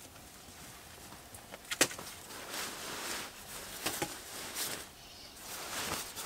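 Rustling fabric as a sleeping bag and blanket are smoothed and arranged by hand, with a few sharp clicks in between, the loudest about two seconds in.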